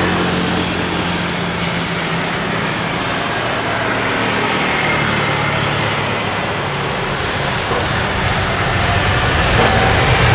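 Steady, loud engine roar with a low rumble that fades after a few seconds and builds again near the end.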